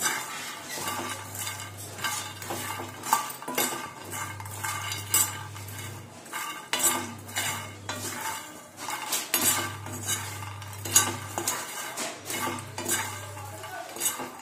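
A metal spoon stirring makhana (fox nuts) that are dry-roasting in a frying pan without oil, making repeated scrapes and clicks against the pan as the light puffs are pushed around.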